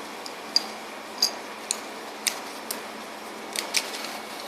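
Light, scattered clicks and taps, about seven, of hands handling the rubber body and leather strap of an artificial vagina, over a steady background hiss.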